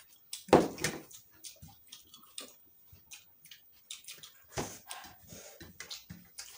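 People eating with their hands at close range: wet chewing, lip-smacking and short clicks from mouths and fingers in food. Two louder sudden knocks or smacks come about half a second in and again past the middle.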